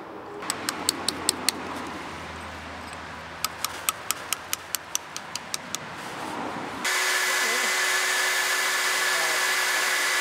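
A hand hammer tapping a steel chisel set into a stone block: two runs of sharp metallic taps, about four a second. About seven seconds in, a water-fed electric angle grinder starts abruptly and runs with a steady whine as its disc cuts into the stone.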